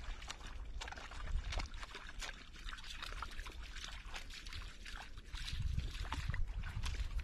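African wild dogs drinking and wading at a shallow waterhole: irregular small splashes and laps of water, with a low rumble coming up about five and a half seconds in.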